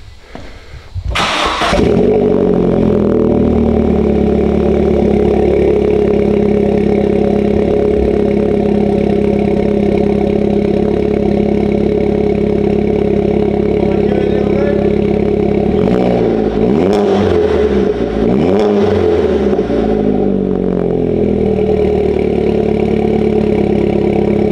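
Vauxhall Astra VXR's turbocharged four-cylinder engine starting about a second in, heard at the rear through a freshly fitted 3-inch Piper exhaust. It settles into a steady idle and is revved a few times about two-thirds of the way through.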